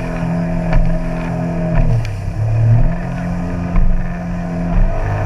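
An engine running steadily, its pitch dropping and picking back up about two seconds in and again near the end.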